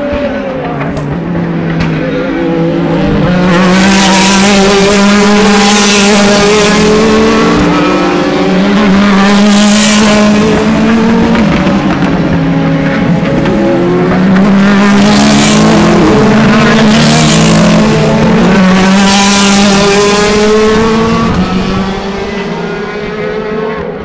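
A pack of DTM touring cars with 4-litre V8 engines going through a corner close by, several engines at once, their pitch falling and rising as they come off the throttle and accelerate away. A run of loud close passes fills the middle, and the sound fades near the end.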